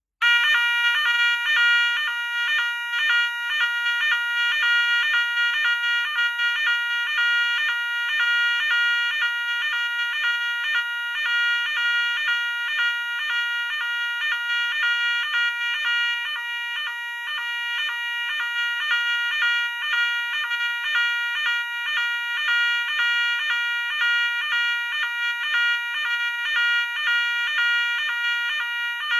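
SFC Nugelec 121001 fire alarm sounder giving the French NF S 32-001 evacuation signal, a pitched two-note pattern repeating about twice a second. It switches on abruptly and sounds at a steady level.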